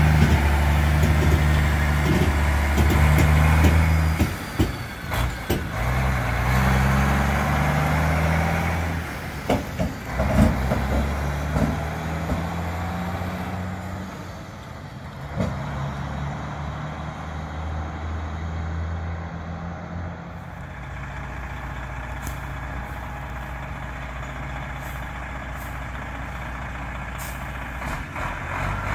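Freightliner FLA cabover truck's diesel engine pulling away and working up through the gears, its pitch climbing and dropping back in steps with each shift, then going quieter and steadier as the truck drives off.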